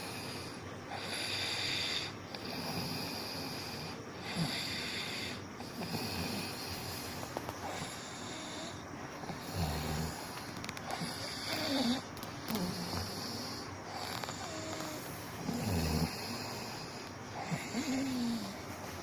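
A person snoring in sleep, with a rough, hissy breath every second or two and a couple of deeper snorts about halfway through and near the end.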